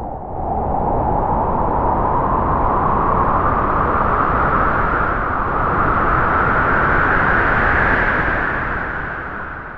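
Spooky Halloween sound effect: one long, loud, noisy ghostly moan that slowly rises in pitch, eases back, then fades out near the end.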